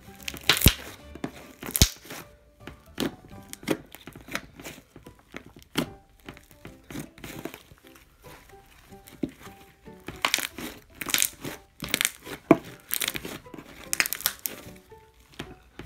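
Hands squishing and kneading purple slime as Daiso clay is worked into it, making irregular crackling, popping squelches, with background music underneath.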